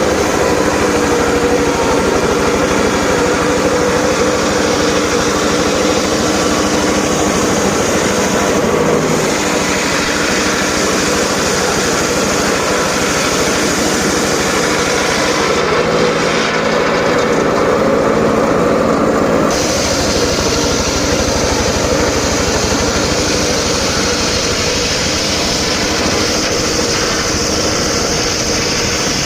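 Home-built circular saw running continuously while cutting sengon wood, a loud, steady machine noise whose sound shifts around nine seconds in and again between about sixteen and twenty seconds.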